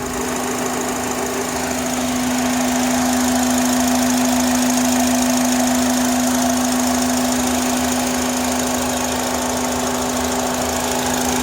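2005 Honda Accord's four-cylinder engine idling with a steady, strange hum, a single unwavering tone over the engine's running. The owner hears it loudest from the air filter box and throttle body and believes it is something with the vacuum, or perhaps the throttle body or intake manifold, but is not sure.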